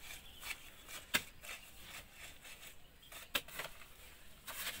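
A hoe chopping and scraping through a heap of cement-and-sand mortar mix being mixed by hand, with two sharp knocks and soft gritty scrapes between them.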